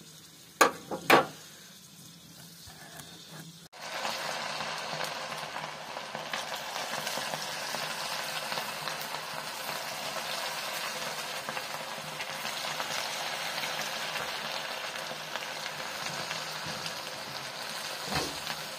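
Hot oil in a kadai sizzling steadily as marinated, batter-coated chicken pieces deep-fry, starting about four seconds in. Two sharp clicks half a second apart come near the start.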